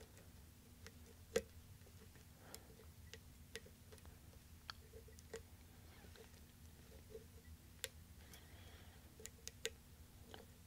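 Faint, irregular metallic clicks and ticks of a hook pick working the pin stack of a weathered 5-pin Schlage lock cylinder under a top-of-keyway tensioner, during single-pin picking. The clicks come unevenly, a few louder ones standing out.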